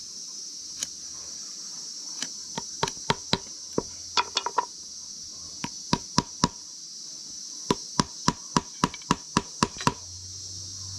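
Claw hammer tapping small nails into thin wooden slats for beehive honey frames, sharp taps coming in quick runs, over a steady high drone of insects.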